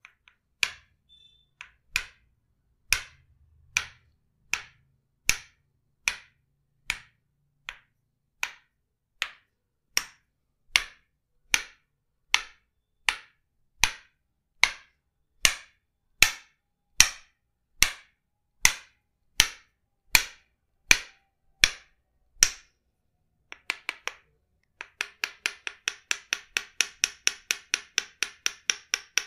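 Tok-Sen massage: a wooden mallet striking a wooden peg held against the body. It gives slow, even knocks a little under a second apart, then, after a short pause near the end, a fast run of taps several times a second.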